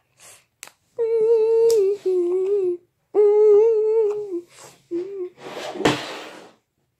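A child humming a short tune in long held notes, each phrase stepping down in pitch. Near the end there is a breathy rustling noise with a single sharp click.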